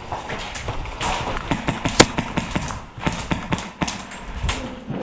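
A run of irregular knocks, taps and clicks, with one sharp, loud crack about two seconds in.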